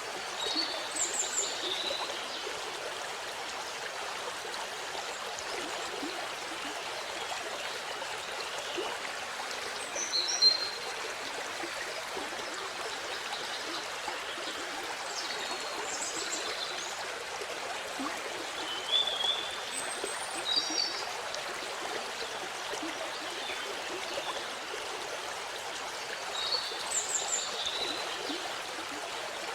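Waterfall water rushing steadily, with a few short bird chirps scattered over it, the loudest about ten seconds in.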